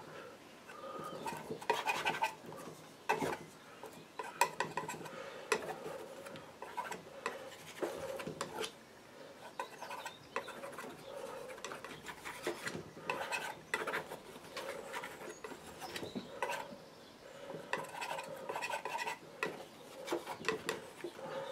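Painting knife scraping and tapping through oil paint as it is mixed on a palette and spread onto a board: short, irregular scrapes with sharp clicks.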